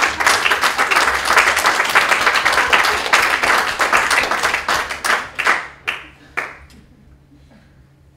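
Theatre audience applauding, dense clapping that thins to a few last scattered claps about six seconds in and then stops.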